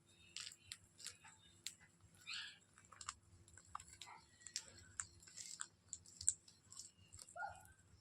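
Indian ringneck parakeets eating okra, beaks tearing pods open to get at the seeds: a run of small irregular clicks and crunches, with a brief scrape about two seconds in and a short chirp near the end.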